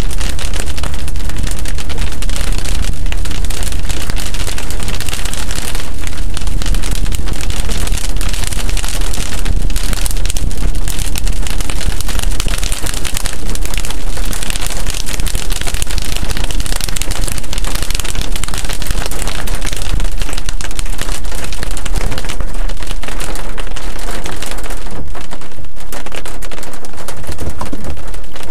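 Loud, steady rush of rain and wet-road tyre noise heard from inside a car's cabin, with a heavy low rumble underneath.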